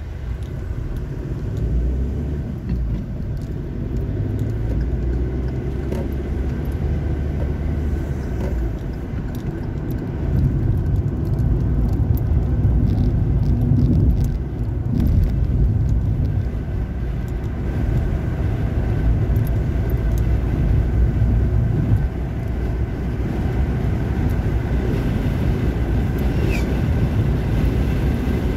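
Road noise heard from inside a moving car: a steady low rumble of tyres and engine, getting louder about ten seconds in.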